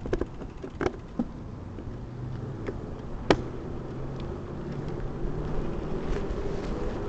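Mountain bike riding over rough ground: sharp knocks and rattles from the bike, strongest about three seconds in, over a steady low hum.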